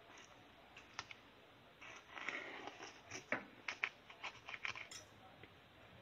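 Faint clicks and scrapes of a knife cutting through a cream-frosted sponge cake and lifting out a slice, most of them between about two and five seconds in.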